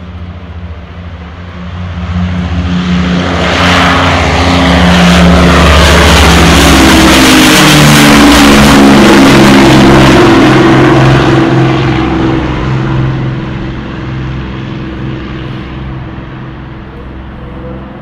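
Avro Lancaster's four Rolls-Royce Merlin V12 engines at full power as the bomber climbs out after take-off and passes low overhead. The engine drone builds over a couple of seconds to a loud peak, drops in pitch as the aircraft goes over, and fades as it flies away.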